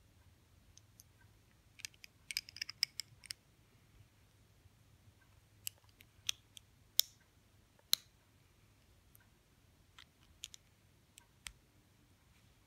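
Plastic LEGO bricks clicking as they are pressed together and handled: a quick flurry of small clicks about two seconds in, then scattered single clicks.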